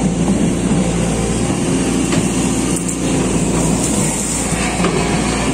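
SANY SY215C excavator's diesel engine running steadily under load, heard from the operator's cab as the arm and bucket dig a trench.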